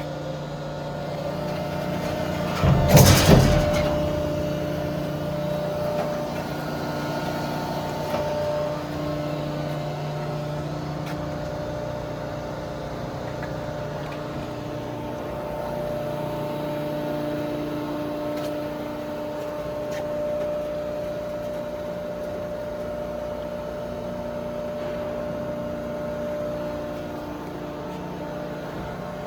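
Hydraulic power unit of a KMF 3040L horizontal baler running with a steady hum whose tones shift as the ram works, with a loud, brief burst of noise about three seconds in.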